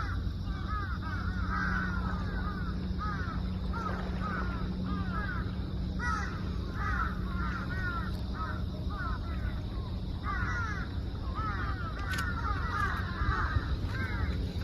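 A flock of birds calling: many short, arched calls overlapping in rapid clusters, over a steady low hum.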